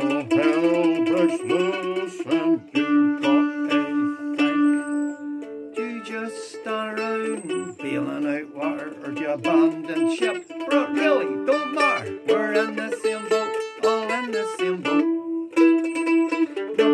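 A-style mandolin played solo: an instrumental break of quick picked notes ringing on in a folk tune.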